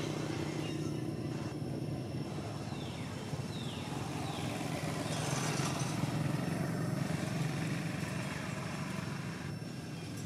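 A motor vehicle's engine running nearby with a steady low hum that grows louder around the middle and then eases off, as if passing. A few short falling high-pitched sweeps sound above it in the first half.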